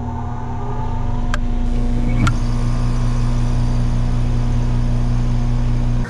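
Central air conditioner's outdoor unit starting up through a Micro-Air EasyStart soft starter. A mains hum builds over the first two seconds as the soft starter ramps the compressor up. Two sharp relay clicks come about a second apart, and then the compressor hums steadily at full run.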